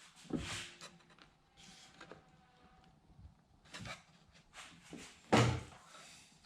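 Wooden shelving pieces being handled and knocked together during assembly: a few short wooden knocks and clunks with small clicks between, the loudest near the end.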